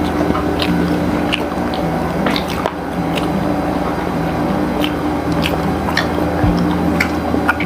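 Biting and chewing fried chicken, with scattered short crisp crunches and wet squishes, over background music with held notes.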